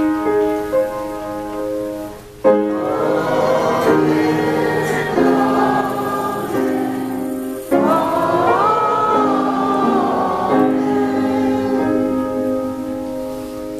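Slow choral singing of a sacred response, over sustained keyboard chords. A held chord opens it, and the voices come in strongly about two and a half seconds in, swelling again near the middle.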